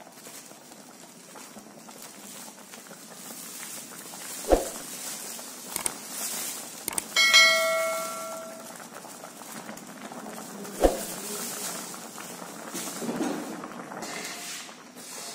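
Rustling of a plastic bag as rice flour is poured into a steel wok of hot water, with two sharp knocks, about four and a half and eleven seconds in. Midway come a couple of small clicks and then a ringing bell chime of about a second and a half: the sound effect of a subscribe-and-bell animation.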